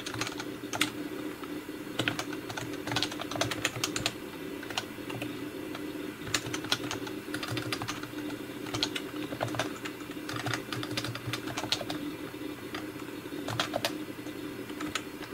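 Computer keyboard being typed on, the keystrokes coming in short irregular bursts with pauses between them, over a steady low hum.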